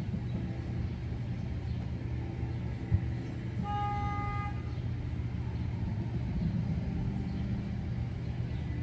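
Steel spade being worked into garden soil, with a single sharp knock about three seconds in, over a steady low rumble. Just after the knock comes one car horn toot lasting under a second.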